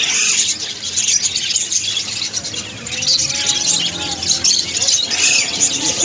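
A crowd of caged budgerigars and other small parrots chattering together, a dense, continuous high-pitched twittering.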